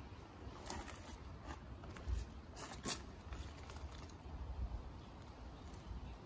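Low wind rumble on the microphone, with faint rustling and a few soft clicks. The loudest clicks come about a second in and again just under three seconds in, as hands and the camera move among the strawberry plants.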